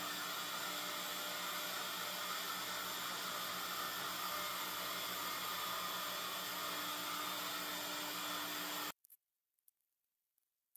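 Trim router on a CNC machine spinning a tapered ball-nose end mill and carving into MDF: a steady whine over cutting hiss, which stops abruptly about nine seconds in.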